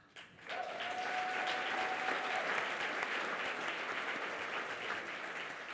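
Audience applauding, with one long steady call from the crowd over the first two seconds; the applause dies away near the end.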